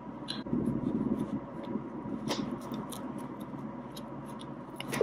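Three-strand rope being worked by hand as the last strand is tucked into the line for an eye splice: soft rustling of the strands rubbing, with scattered small clicks and one sharper click a little over two seconds in.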